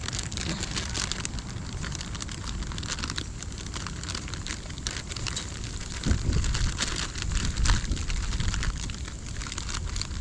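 Small wood fire crackling and popping in a hinged firebox stove, with many quick irregular snaps. A low rumble joins for a couple of seconds about six seconds in.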